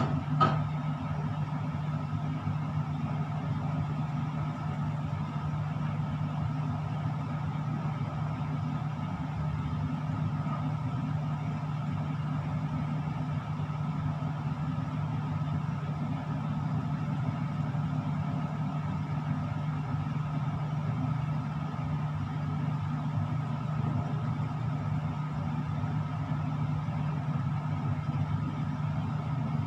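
Steady low machine hum with a thin, high, steady whine above it, and a single click just after the start.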